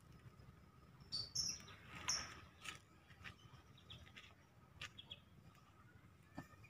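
Faint outdoor background with a few short, high bird chirps, the clearest about a second and two seconds in, and scattered light clicks.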